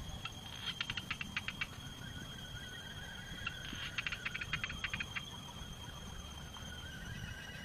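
Insects singing in steady high-pitched tones, with two short runs of rapid clicking, each about a second long, one early and one around the middle.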